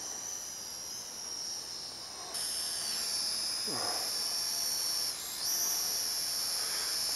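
SG907 quadcopter's motors and propellers whining high and steady as it hovers, growing louder about two and a half seconds in and dipping briefly in pitch around five seconds. The motors, one of them newly replaced, run stably. Two short downward swoops sound faintly in the background.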